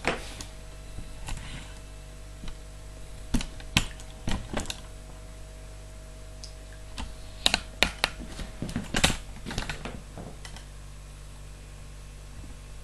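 Scattered light clicks and taps from a hand-held camcorder being handled, bunched around four seconds and eight seconds in, over a faint steady hum.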